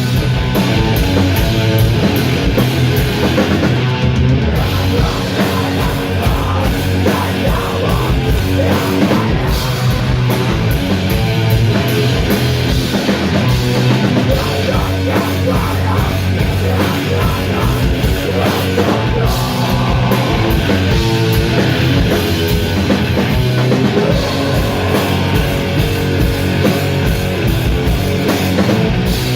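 Sludge metal band playing live: heavily distorted guitars and bass over pounding drums, loud and dense throughout.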